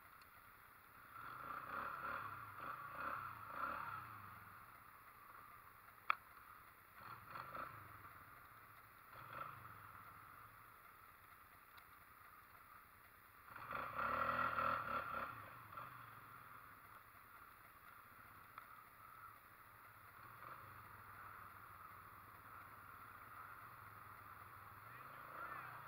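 ATV engines running faintly at a distance, rising in two revving stretches, one from about a second in and a louder one near the middle, with a single sharp click about six seconds in.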